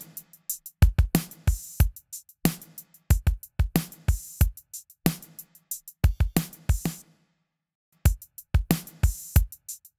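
A drum loop playing back through a Vari-Mu compressor set to smash it hard, with kick and snare hits in a steady beat. The drums cut out for about a second near the end, then the beat comes back in.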